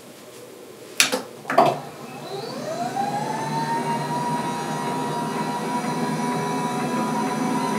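Electric lift motors of an Autonomous SmartDesk sit-stand desk whining as the desk rises. Two sharp clicks come about a second in, then the whine climbs in pitch and settles into a steady tone.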